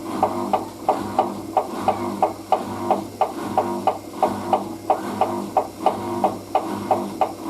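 Hoover DYN9144D3X washing machine drum turning a load of towels during a spin-only cycle, its motor humming under a regular knock about three times a second.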